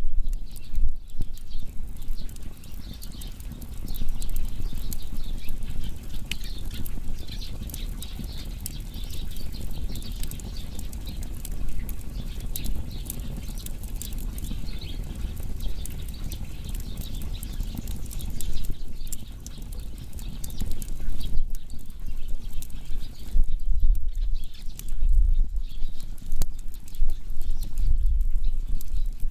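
Wood fire burning, crackling with many small irregular pops over a soft hiss and a low rumble that swells over the last third.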